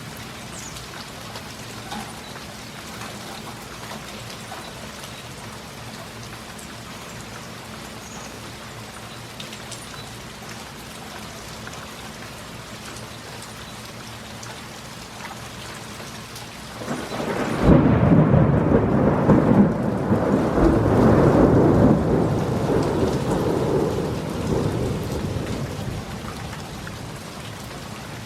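Steady heavy rain falling, with a loud crack and rumble of thunder about two-thirds of the way through that rolls on for several seconds and then fades back under the rain.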